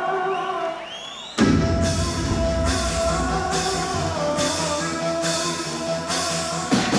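Instrumental rock song intro: held notes with a rising sweep, then about a second and a half in the full band comes in loudly with drums.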